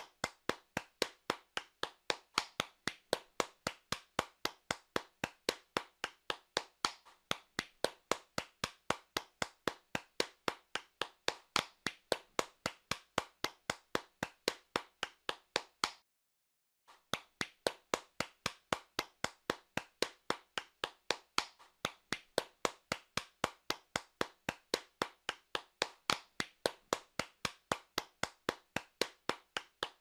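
Hands clapping in a steady rhythm of sharp, separate claps, about three a second, with a break of about a second just past the halfway point.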